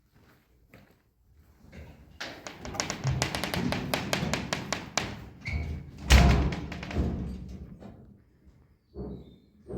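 Hand work on the tractor with its engine off: a quick run of clicks lasting a couple of seconds, then a loud thud about six seconds in, with scattered taps and knocks around them.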